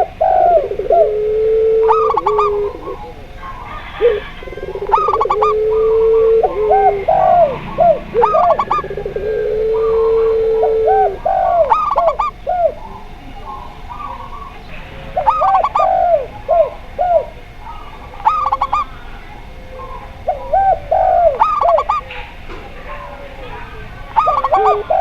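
Several doves cooing together: a zebra dove (perkutut) gives repeated quick, high staccato coo phrases, and a spotted dove (tekukur) and a puter pelung dove give lower, long drawn-out coos, with a few of these long low coos across the stretch.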